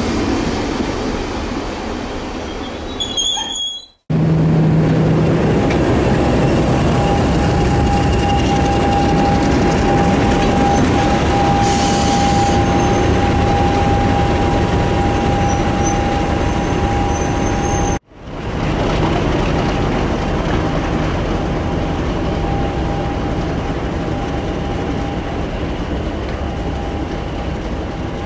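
A diesel train running, a steady loud rumble with a steady high whine over it. The sound cuts out for an instant twice, about four seconds in and again about two-thirds of the way through.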